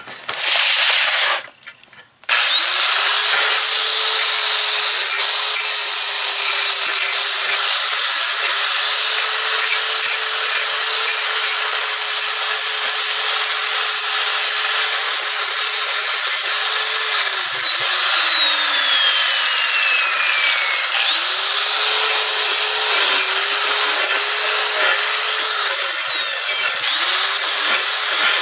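Angle grinder with a nearly worn-out flap disc grinding the corners of a steel drawbar. It gives a short burst at the start, then runs steadily with a high motor whine over the grinding noise. About two-thirds of the way through it is switched off and winds down with a falling whine, then starts again and grinds on, its pitch dipping as the disc bites.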